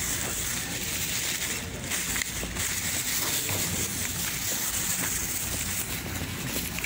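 Steady rustling and rubbing of a hand-held phone's microphone as it is carried while walking, a hiss with scattered faint clicks.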